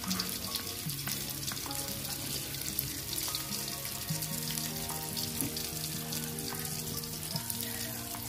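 Garlic, shallots and ground chili paste sizzling in hot oil in a wok, a steady crackling hiss. Soft background music with slow, changing notes plays under it.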